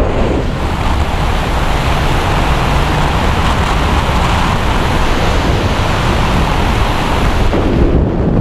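Wind rushing hard over a helmet-mounted camera's microphone during a tandem skydiving freefall, a steady loud roar. Near the end the higher hiss falls away as the parachute opens and the fall slows.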